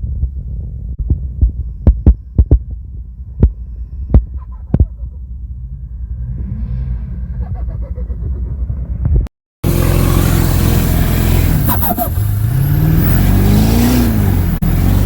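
Turbocharged Duramax LB7 diesel engine rumbling, with a run of short sharp clicks in the first five seconds, the turbo flutter as the throttle is lifted. After an abrupt cut about nine seconds in, it runs louder, its pitch rising and falling as it is revved.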